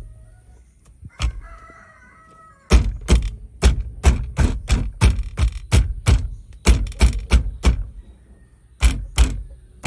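A car steering wheel being struck repeatedly around its rim to knock it loose from the steering column shaft: a single knock, then a rapid run of sharp knocks, about three a second.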